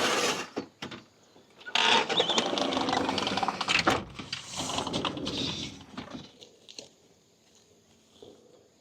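Rustling and scraping of a fabric shade cloth being pulled down off its wire supports, with rapid crackling through it. A short burst comes first and a longer one about two seconds in, dying away about six seconds in.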